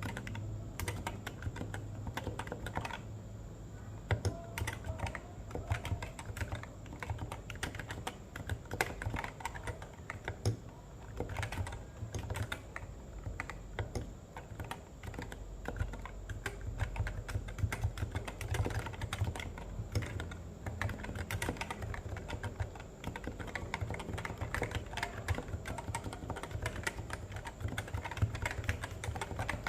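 Typing on a Realforce R2 RGB keyboard with Topre electrostatic capacitive switches, fitted with thick PBT Cherry-profile keycaps: a dense, unbroken stream of keystrokes.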